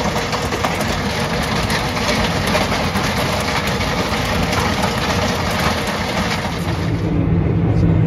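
Valtra tractor driving a Meri Crusher stone-crushing mill along a gravel forest road: the steady rumble of the engine and spinning rotor, with a dense crackle of stones being crushed. About seven seconds in, the sound changes to the much quieter low hum of the engine heard inside the tractor cab.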